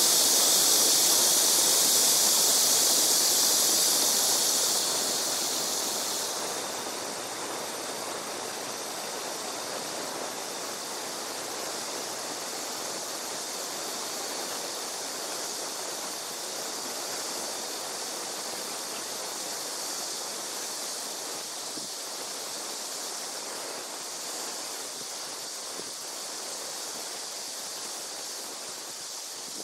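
Steady outdoor hiss like running water. A loud high-pitched part fades away about five seconds in, leaving a quieter even hiss.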